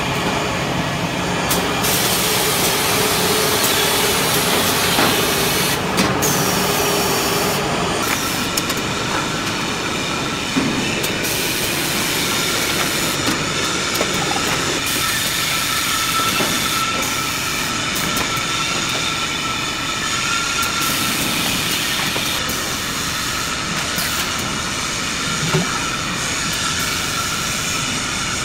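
Automatic paint-pail filling and palletizing line running: steady machine and conveyor noise with a faint hiss. A thin steady whine joins from about halfway, and there are a few sharp clicks.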